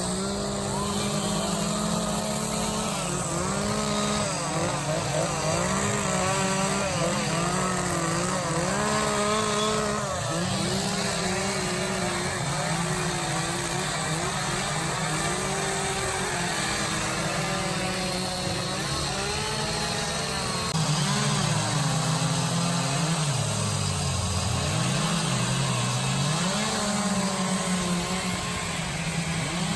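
Several chainsaws running at once, revving up and down as they cut into wood for carving.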